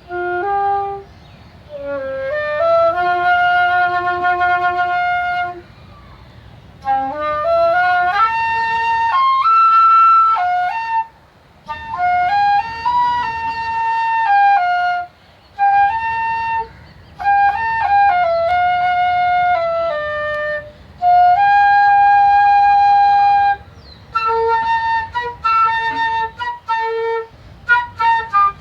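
Solo flute playing a slow, sad melody in phrases, with long held notes and slides between pitches, and short pauses between the phrases.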